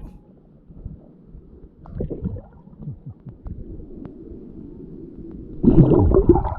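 Muffled water sounds picked up by a submerged action camera: low rumbling and gurgling with scattered knocks, and a louder surge of water movement near the end.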